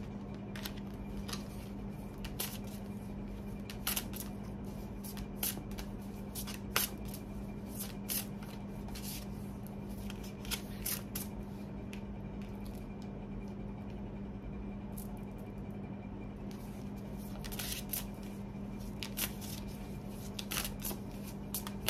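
Tarot cards being shuffled and handled by hand: irregular soft card flicks and taps, in a busy stretch over the first half and again near the end. A steady low hum runs underneath.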